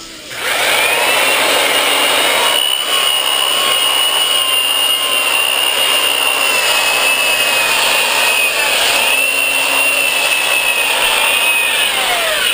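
Milwaukee 5540 sander/polisher with a foam power pad, sanding the fiberglassed deck of a surfboard. The motor spins up with a rising whine about half a second in, runs with a steady high whine over the rush of the pad on the board, then winds down with a falling pitch near the end.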